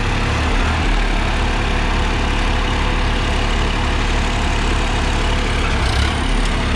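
Diesel engines of a Swaraj 855 FE and a Farmtrac 60 EPI tractor running steadily at about 1500 RPM as both tractors drive side by side in third gear.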